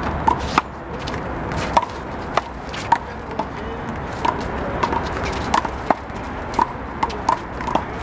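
One-wall handball rally: a rubber handball is slapped by hand, strikes the concrete wall and bounces on the court. More than a dozen sharp smacks, each with a short ring, come at irregular intervals.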